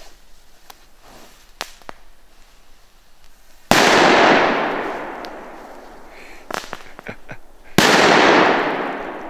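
Two small category 1 fireworks (Enigma's) go off about four seconds apart. Each starts with a sharp pop that turns into a loud hiss, fading away over about two seconds.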